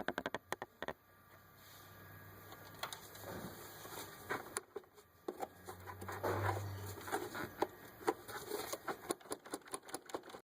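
A friction-fit part on the pins of a 2008 Dodge Nitro's engine bay being pried and pulled up out of its rubber grommets: a quick run of clicks, then scattered sharp clicks, knocks and scraping. It takes quite a bit of force to lift.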